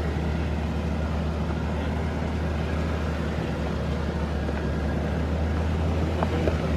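Jeep engine running steadily, a constant low drone with no change in pitch, and a short click near the end.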